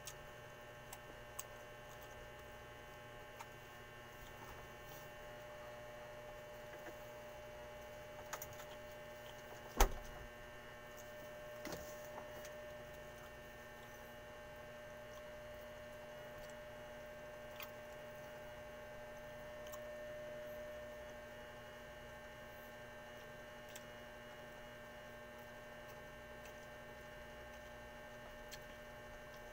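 Steady electrical mains hum, with faint scattered clicks and one sharp knock about ten seconds in while a man eats rice and fish with his hands.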